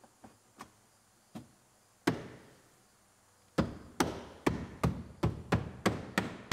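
Open palm striking a plastic B-pillar trim panel to snap its clips into the pillar: one thump about two seconds in, then a quick, even run of sharp smacks, about three a second, from a little past halfway on.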